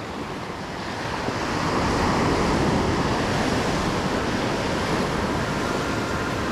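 Ocean surf breaking and washing up the sand of the beach, a steady rush that swells about a second in.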